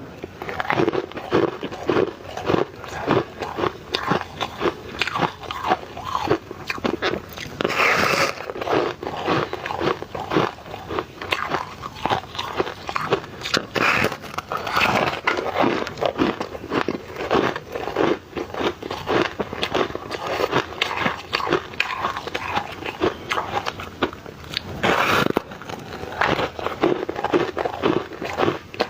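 A person biting and chewing ice cubes, a dense, unbroken run of crunches and crackles.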